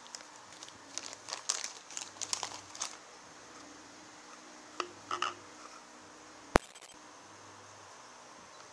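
Plastic snack wrappers crinkling as they are handled, in a flurry of crackles over two seconds or so, then a few lighter rustles. About six and a half seconds in, a single sharp click, the loudest sound.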